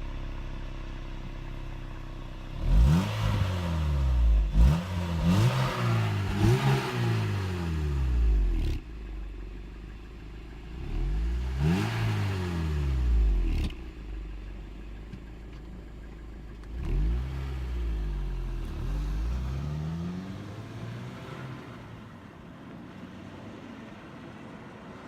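Acura RSX Type S 2.0-litre four-cylinder engine free-revving from idle in quick blips, each rev rising and falling sharply. The revs come in three clusters, with the engine settling back to idle between them.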